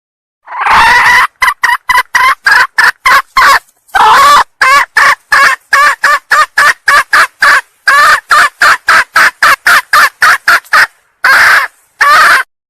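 Red junglefowl hen (ayam hutan betina) calling: three series of rapid, clipped clucking notes, about four to five a second, each opened by a longer note, with two longer notes near the end. It is the hen's call used as a lure to draw junglefowl cocks.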